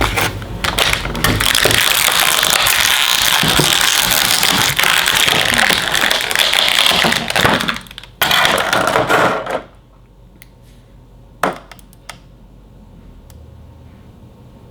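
Packaging rustling as a toy figure is unwrapped: about eight seconds of steady crinkling, a short pause, another brief burst, then a few light clicks and taps.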